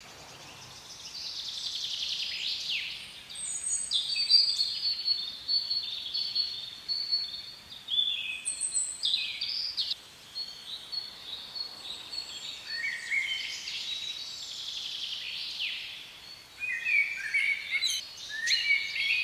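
Songbirds chirping and calling: quick high notes and short falling whistles, with a busier run of rapid notes near the end, over faint outdoor hiss.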